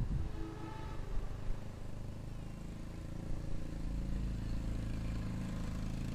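An engine running at a distance as a steady low rumble, its hum growing stronger about four seconds in.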